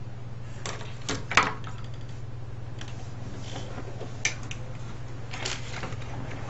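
Scattered clicks, knocks and light rattles of a cassette recorder's parts being handled during disassembly for scrap, with one sharper knock about a second and a half in. A steady low hum runs underneath.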